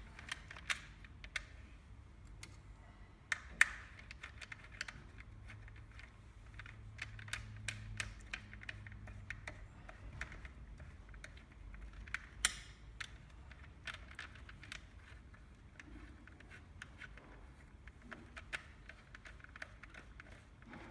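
Irregular small clicks and taps of tool parts being handled and fitted by hand while reassembling an ST400i cordless fencing stapler, with two sharper clicks about 3.5 s and 12.5 s in.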